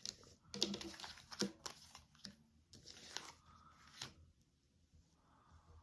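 Tarot cards being handled on a table: a run of short papery rustles and light taps through the first four seconds, then quiet.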